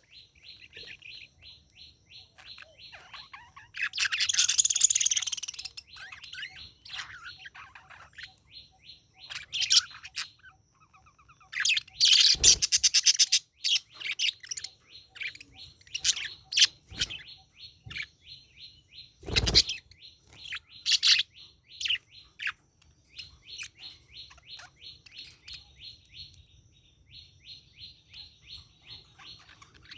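Budgerigar warbling chatter: long runs of rapid short chirps. Louder, harsher calls come about four seconds in and again around twelve seconds. Two sharp knocks sound, one near the middle and one about two-thirds of the way through.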